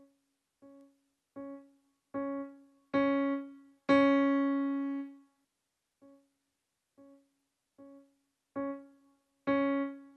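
A Yamaha P-125 digital piano playing one note about ten times, roughly a second apart, in two runs that each start soft and grow louder with harder key presses. The loudest strike, about four seconds in, is held and rings for over a second.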